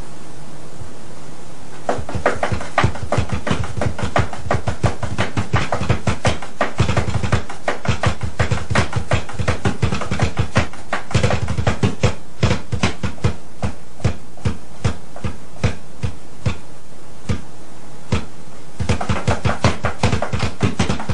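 A long run of sharp clicks or taps, several a second and uneven in spacing, over a low steady hum; the clicks begin about two seconds in.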